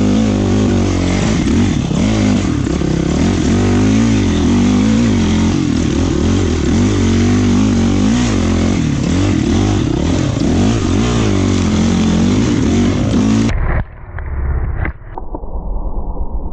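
Dirt bike engine running under way, its pitch rising and falling with the throttle, heard through a helmet-mounted camera. About three seconds before the end the sound cuts off abruptly and a duller, muffled rumble follows.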